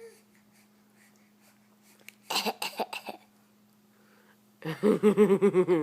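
A baby's short coughs, a quick cluster of three or four about two seconds in, the attention-seeking fake coughs of a baby getting over a cold. Near the end comes a rapid string of short voiced huffs, about eight a second, like laughing.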